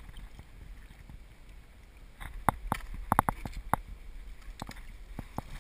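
Fishing reel drag clicking in short, irregular bursts as a hooked smallmouth bass pulls line off, over a steady low rumble. The clicks start about two seconds in.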